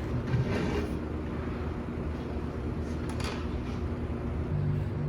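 Steady low mechanical hum, with two short hissy sounds about half a second and three seconds in.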